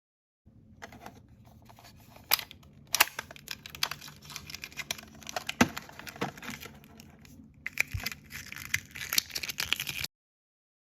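Plastic packaging of L.O.L. Surprise blind bags being torn open and crinkled by hand, with many sharp clicks and snaps. It starts about half a second in and stops suddenly about a second before the end.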